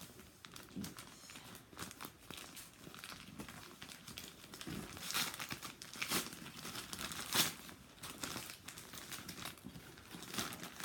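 Gift wrapping being crinkled and torn open by hand in irregular crackling bursts, with a few louder rips partway through.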